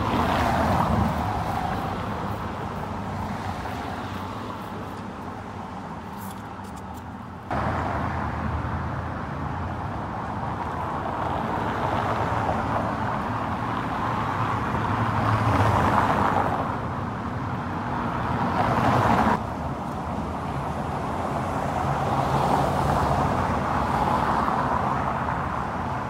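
Street traffic noise: the hiss of cars passing, swelling and fading several times, with the background shifting abruptly twice.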